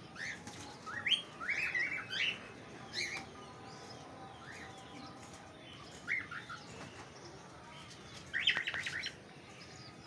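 Cockatiel flock calling: short rising chirps in clusters, the busiest about a second in and again near the end.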